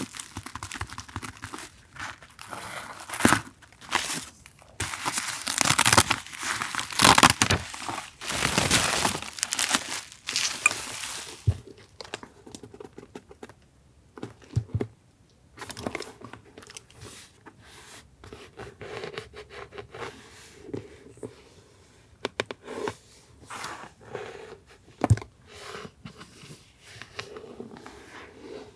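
Packaging being crinkled and torn open by hand, with dense, loud crinkling for the first ten seconds or so, then lighter rustles and small taps as the contents are handled.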